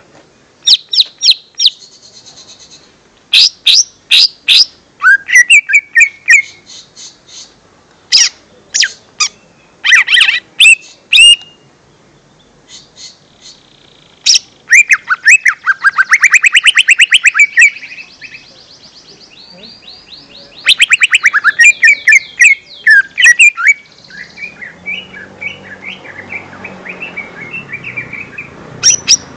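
Lesser green leafbird (cucak ijo mini) singing a varied song of sharp chirps and whistled phrases, with two fast rattling trills about halfway through and a busier, softer chattering near the end.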